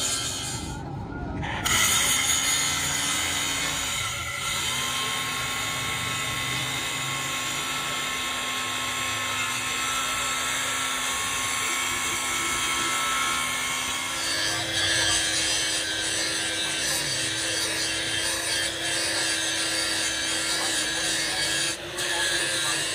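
Angle grinder grinding the steel teeth of a helical gear pinion shaft, its disc held against the metal in a steady grind with a motor whine that steps up in pitch about two-thirds of the way through. The grind breaks off briefly near the start and again near the end.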